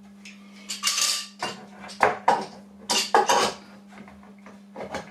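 Clattering of a wooden frame and hand tools being handled and set in place on a workbench: a short scraping rustle about a second in, then several sharp knocks and clacks.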